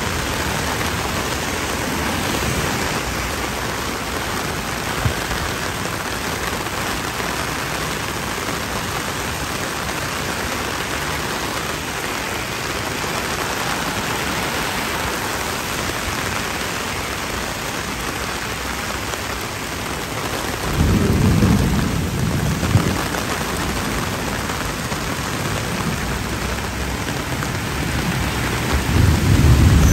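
Torrential rain pouring onto a paved street and road, a steady dense hiss. A low rumble, thunder, comes about twenty seconds in and again near the end.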